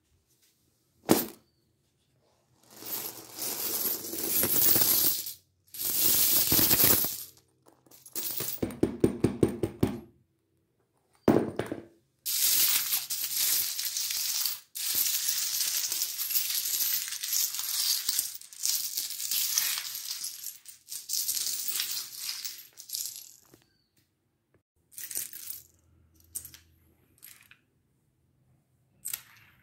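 A heap of metal coins clattering on a wooden floor and being pushed around by hand. First come several jingling bursts and a fast run of clinks, then a long continuous jingling rush as the pile is spread out, then scattered single clinks near the end.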